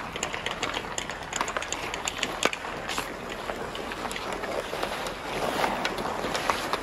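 Ice hockey game play on outdoor ice: skate blades scraping and carving, with scattered sharp clacks of sticks striking the puck and ice, the loudest about two and a half seconds in.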